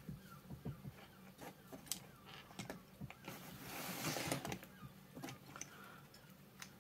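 Faint handling noises on a workbench: scattered light clicks and taps as the plastic body shell of a model locomotive and its loose wires are picked up and moved. About four seconds in comes a soft scraping rustle as the foam cradle holding the chassis is slid across the cutting mat.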